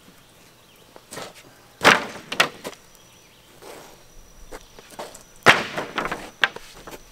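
Freshly milled pine sheathing boards knocking together as they are lifted off the sawmill and set down. Two loud wooden clatters, about two seconds in and again past five seconds, each followed by a short rattle of board against board.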